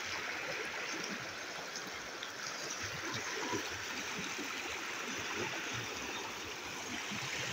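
Shallow stream rushing and splashing over stones and boulders, a steady even rush of water.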